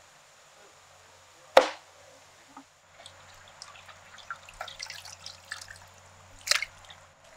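One sharp knife chop through raw seer fish onto a wooden cutting board about a second and a half in, then water splashing and dripping as the raw fish steaks are rinsed by hand in a metal pot, with a louder splash near the end.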